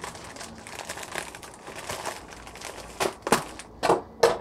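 Close rustling and crinkling handling noise, with four sharp knocks in the last second and a half.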